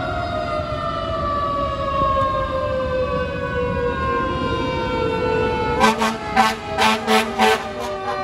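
Fire engine's siren wailing on one slowly falling tone over the truck's low rumble. About six seconds in it gives way to a rapid series of short, loud air horn blasts, two or three a second.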